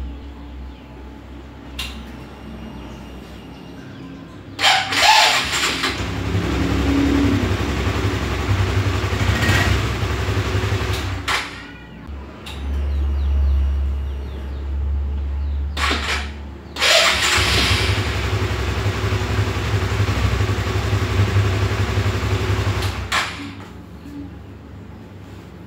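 Honda CB150R StreetFire's electric starter cranking with a rough, strange noise, the single-cylinder engine catching and running for several seconds, then shut off. This happens twice. The owner puts the noise down to a dry or dirty starter motor.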